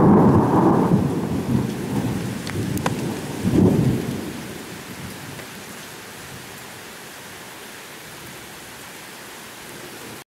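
Thunderstorm: thunder rumbling at the start and again about four seconds in, then dying away to steady rain. The sound cuts off suddenly just before the end.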